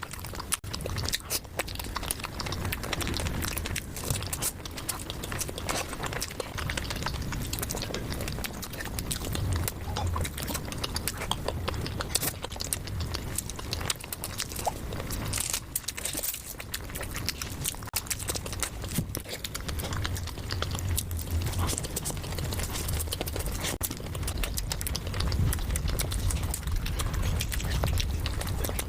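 A person chewing and biting food close to the microphone, with many small clicks and smacks: mukbang-style eating of chowmein noodles and momos.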